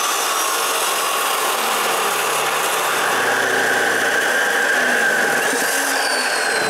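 Abrasive cutoff chop saw cutting through a steel rod: a steady grinding whine. Near the end the rod is cut through and a high tone in the whine falls slightly.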